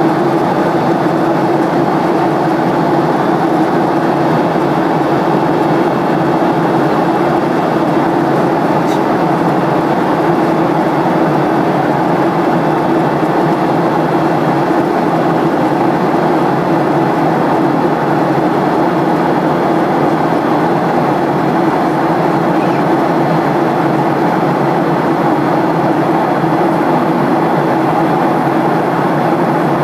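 Steady cabin noise inside a Boeing 737-800 airliner: the CFM56-7B turbofan engines and airflow making an even, unchanging roar.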